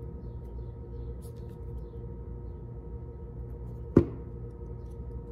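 A single sharp knock about four seconds in, ringing briefly, over a steady low hum.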